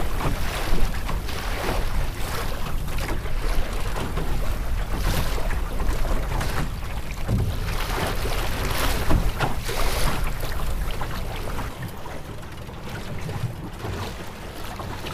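Wind buffeting the microphone in a low rumble, with choppy waves splashing and slapping against the hull of a small sailing skiff. The wind rumble eases off near the end.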